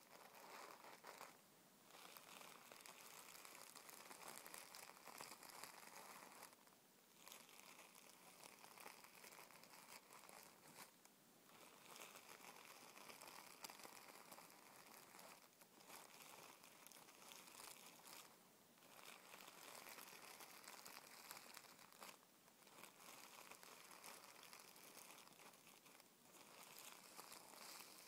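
Tissue paper rubbed and scrunched under fingertips: a soft, continuous crinkling rustle, broken by brief pauses every few seconds.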